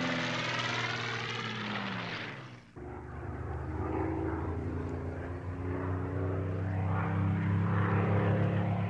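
Supermarine Spitfire's piston V12 engine in a low flyby: the drone passes overhead, its pitch falling as it moves away and fades. About three seconds in the sound breaks off abruptly and the engine comes back as a steady note that grows louder as the plane approaches.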